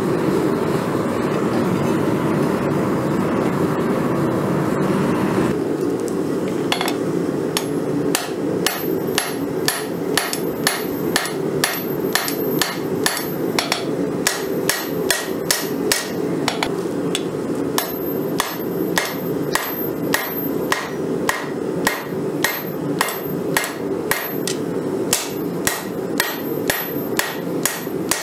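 Gas forge burner running with a steady rush for about five seconds, then a hand hammer striking a glowing Damascus steel bar on an anvil at about two blows a second, each blow ringing off the anvil.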